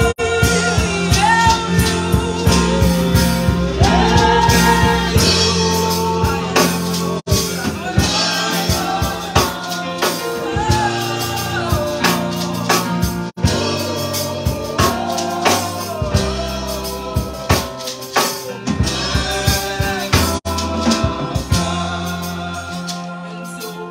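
Gospel worship song: a woman's voice leads the singing through a microphone over sustained bass notes and a steady drum beat.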